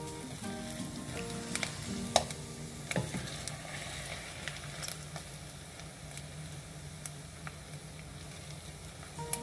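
Chicken skins frying in bubbling rendered fat in a stainless steel saucepan, a steady sizzle, stirred with a wooden spatula. There are a couple of sharp knocks about two and three seconds in.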